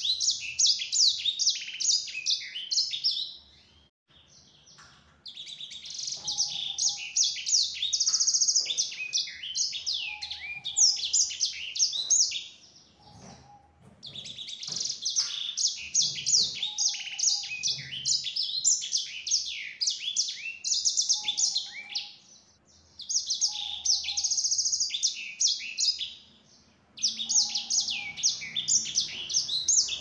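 Caged sanger finch singing a fast, high, twittering song in long run-on phrases of a few seconds each, separated by short pauses.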